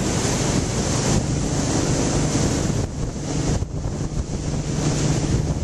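Wind buffeting the microphone over the rushing wake behind a speedboat at high speed, with the boat's engine running steadily underneath as a low hum.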